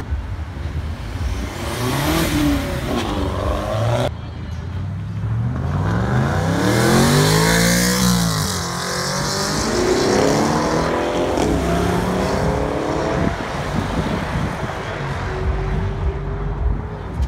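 Car engines revving and accelerating as cars drive past, the engine note rising through the gears. One car climbs in pitch and drops away about eight seconds in, and others follow. There is an abrupt change about four seconds in.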